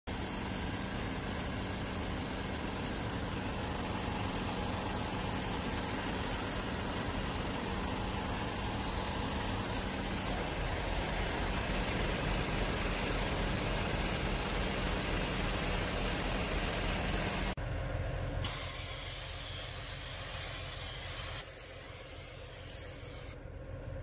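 Trukr Stik truck vacuum, powered by the truck's compressed air, running with a steady loud hiss of rushing air over a low engine rumble. Near the end the sound drops and shifts abruptly a few times.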